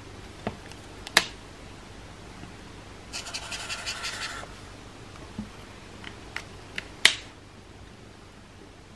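Alcohol marker cap pulled off with a sharp click about a second in, then the marker's fine nib scratching across paper for about a second in a quick zigzag stroke, followed by a few lighter clicks and another sharp cap click near the end.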